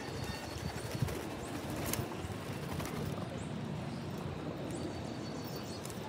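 A flock of feral pigeons cooing and fluttering, a dense low rustling murmur, with one sharp click about two seconds in.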